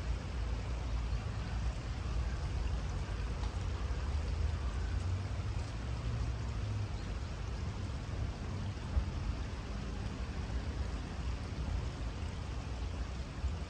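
Shallow river water running steadily over a stony riffle, with a low rumble underneath.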